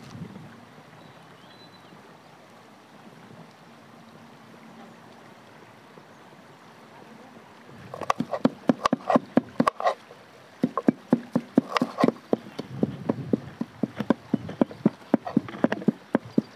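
A kitchen knife chopping potatoes on a wooden cutting board: quick, irregular taps that start about halfway through, after a quiet outdoor stretch.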